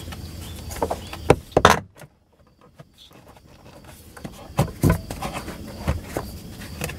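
Hands tugging and rocking a plastic car heater box to work it loose from the firewall: a scatter of short knocks and clicks of plastic on plastic, with a near-silent stretch of about a second after two seconds in.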